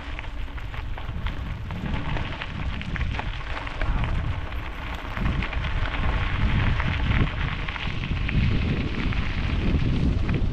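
Wind buffeting an action camera's microphone on a moving mountain bike, with a dense crackle of tyres running over gravel and loose stones on a trail; it gets louder about four seconds in and again a couple of seconds later as the pace picks up.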